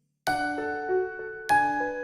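Background music with bell-like struck notes ringing out in a gentle melody, starting about a quarter second in after a brief silence.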